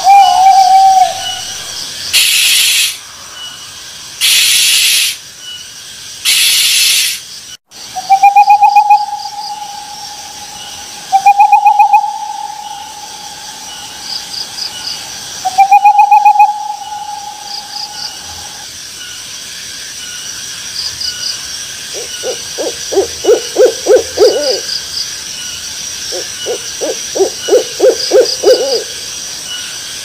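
Owl calls: three harsh hissing screeches, then three drawn-out whistled notes of two to three seconds each, then two bouts of quick pulsing hoots near the end. Crickets chirp faintly and regularly underneath.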